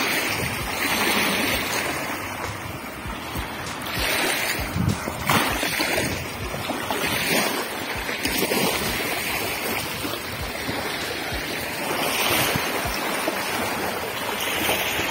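Small waves washing onto a pebbly river shore, mixed with wind on the microphone; the noise swells and fades every few seconds.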